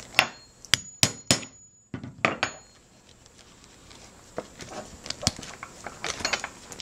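A hammer striking a hole punch to punch a hole for a copper rivet: four hard metallic blows in the first second and a half, two more soon after, then lighter taps and clinks.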